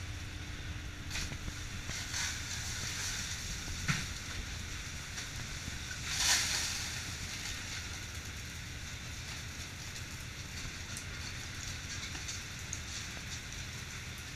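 Steady low drone of a fishing boat's engine under a steady hiss, with a few sharp knocks and a louder hiss that swells and fades about six seconds in.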